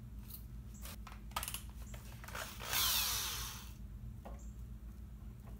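Electric drill whirs in one short burst of about a second near the middle, its whine falling as the motor winds down. A few light handling clicks come before it.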